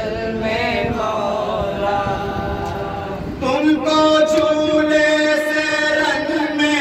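Male voices chanting a nauha, an Urdu lament for Muharram, in long held notes. The line dies down and a new held phrase begins about three and a half seconds in.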